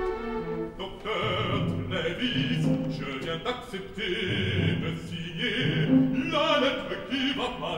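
A man's operatic voice singing a line over an orchestra. The voice comes in about a second in, after the orchestra alone.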